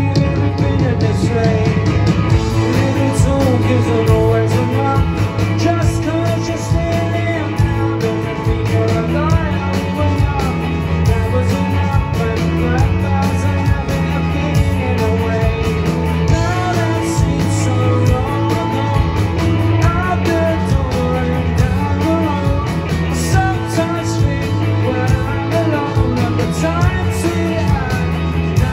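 Indie rock band playing live through a venue PA: two electric guitars, bass guitar and drums driving a steady beat under a male lead vocal.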